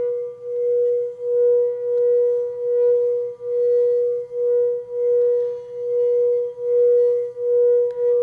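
Frosted quartz crystal singing bowl being rubbed around its rim with a mallet, sustaining one steady, loud singing tone with faint higher overtones. The tone swells and fades in a slow, even pulse, about three times every two seconds.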